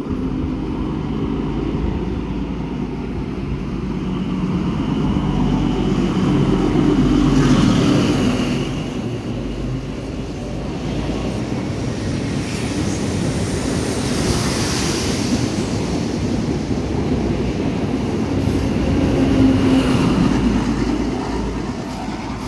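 NSW TrainLink XPT diesel passenger train passing at speed, its engine rumble and wheel-on-rail noise going on throughout. The sound swells about seven seconds in and again near the end, as the power cars at each end go by, with a rushing hiss from the carriages in between.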